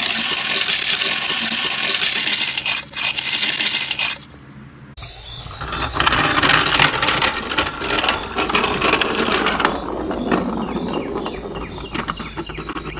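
Plastic toy trains and Mega Bloks pieces rattling and clattering on a plastic track, in a few separate cuts. A dense rattle for about four seconds gives way to a short lull, then more rattling that turns quieter over the last few seconds.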